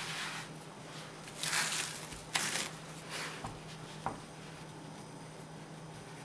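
Hands swishing flour across a wooden board and handling a ball of dough: several short brushing swishes in the first three seconds or so, then a single light tap about four seconds in.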